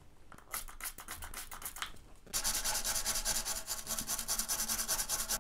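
Stiff brush scrubbing the underside of a printed circuit board at a freshly soldered joint: a few separate scratchy strokes at first, then, a little over two seconds in, fast steady back-and-forth scrubbing, louder.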